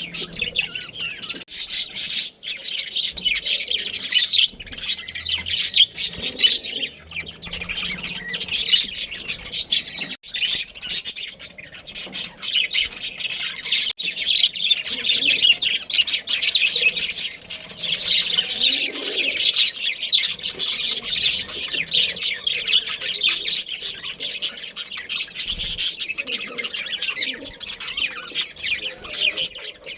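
Budgerigars chattering and chirping together, a dense continuous stream of high chirps and squawks.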